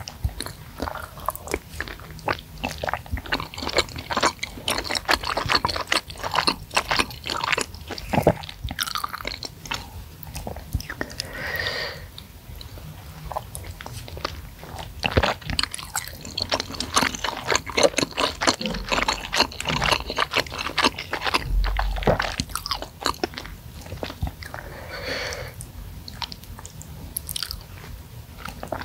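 Close-miked eating sounds: wet chewing and smacking of spicy seblak, with meatballs and noodles in a thick broth. The mouth clicks come quickly, one after another, all through.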